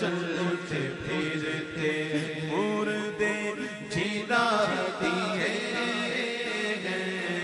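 Chanted vocal music: a voice holding long notes that slide up and down in pitch.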